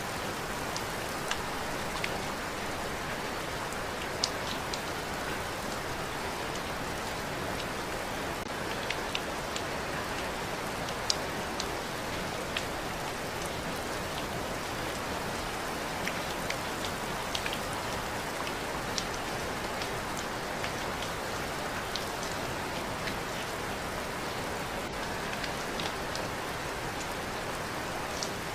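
Steady rain falling: an even, continuous hiss with scattered sharper drop ticks on top.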